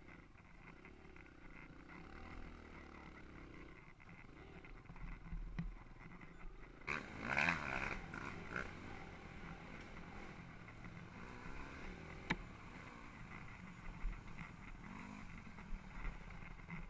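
Dirt bike engine revving up and down as it is ridden over a rough trail, heard from the rider's helmet, with a few sharp knocks from the bumps and a loud brief burst about seven seconds in.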